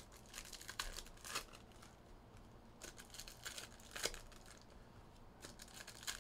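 Faint, irregular crinkling and tearing of a trading-card pack wrapper being torn open, with the cards handled.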